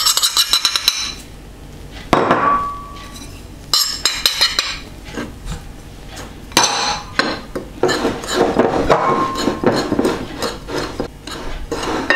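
Metal fork stirring dry flour and spice powder around a ceramic bowl, scraping and clinking against the bowl, with a quick run of taps near the start and busier scraping later on; one or two clinks ring briefly.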